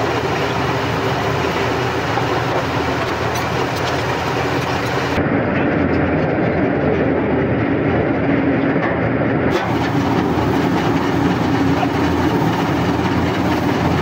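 The heavy engine of a borewell drilling rig running loud and steady under a constant mechanical rushing noise. The top end goes dull for about four seconds from around five seconds in, then returns.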